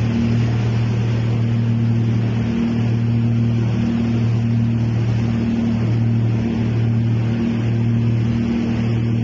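Boat engine running steadily, with a constant rush of wind and water over it.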